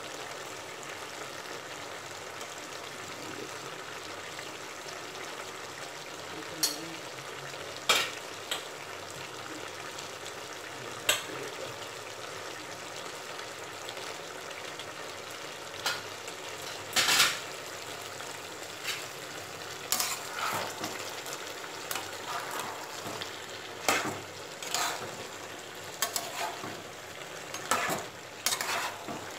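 Vegetable curry cooking down in a pan with a steady sizzling hiss. A spatula knocks and scrapes against the pan now and then as it is stirred, more often in the second half.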